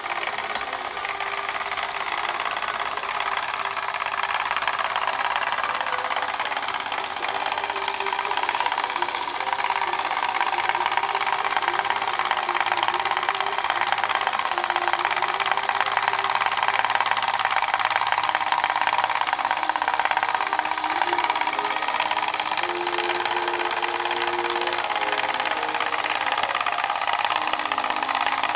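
Small single-acting oscillating steam engine running steadily on compressed air, with a fast even beat and the hiss of exhausting air, driving an 18:1 gearbox and belt drive to a model paddle boat's paddle shaft.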